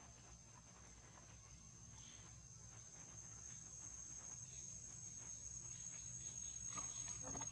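Insects droning in a steady high-pitched whine that grows louder toward the end, with a few faint clicks near the end.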